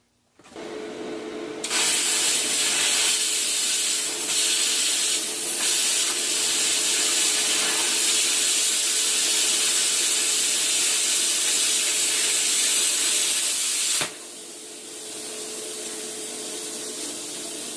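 Cut 50 plasma cutter's arc cutting 3/16-inch mild steel: a loud, steady hiss that starts about two seconds in and stops suddenly near the end, after which a quieter hiss carries on. A faint steady hum runs underneath.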